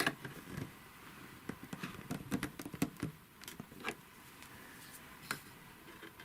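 Small irregular metal clicks and taps from a sewing machine's shuttle hook mechanism being adjusted by hand, with a sharp click at the start and a cluster of light taps in the middle.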